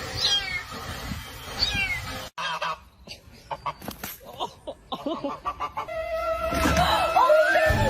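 A cat meowing twice, two short calls falling in pitch, followed by a sudden cut to scattered clicks and then background music.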